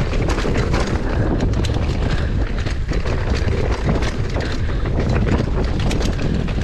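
Mountain bike being ridden fast over a dirt trail: steady wind rush on the microphone and tyre rumble, with frequent quick rattles and clicks from the bike over the bumps.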